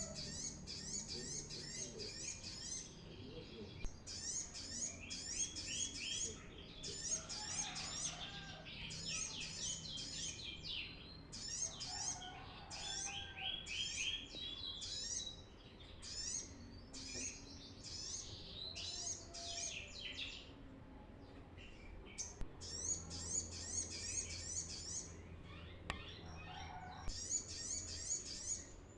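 Brown-throated sunbird (kolibri kelapa) singing vigorously: repeated short phrases of rapid, high, down-slurred twittering notes, with brief pauses between phrases.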